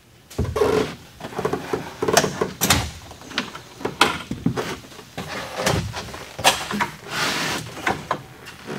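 Plastic 5-gallon buckets full of water knocking and clunking as they are lifted and set down in a fiberglass tub, with the wire bail handles clinking. There are many separate knocks throughout.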